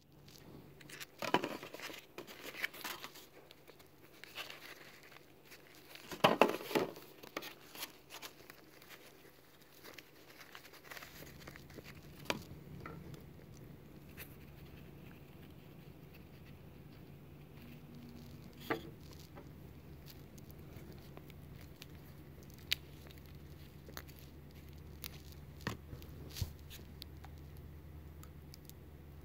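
Close handling noises: a paper towel rustling and crinkling and a painted rock moved about on a foam plate, in two short flurries in the first several seconds. About a third of the way in a low steady hum comes in, with a few scattered small clicks over it.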